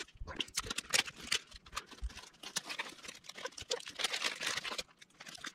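Hands working with plastic drinking straws and tape: scattered light clicks and rustles, with a slightly longer rustle about four seconds in.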